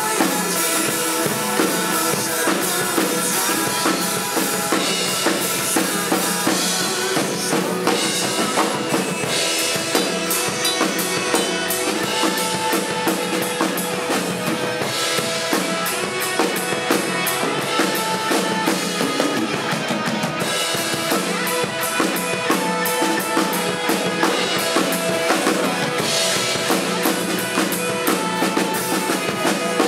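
Acoustic drum kit played live over a pop song's backing track: a steady beat of kick drum, snare and cymbals over the recorded music.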